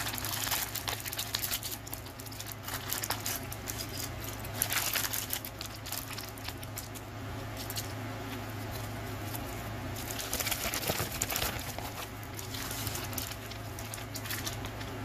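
Plastic LEGO Super Mario character-pack bag crinkling as it is torn open and handled, with small LEGO pieces clicking and rattling against a hard table as they are tipped out and pushed around. The crinkling comes in several louder bursts.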